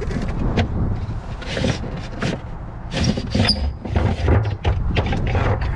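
Irregular knocks, clunks and rattles of a spare tire and the trunk's stowage parts being handled and pulled loose, with a brief squeak about three and a half seconds in, over a low rumble.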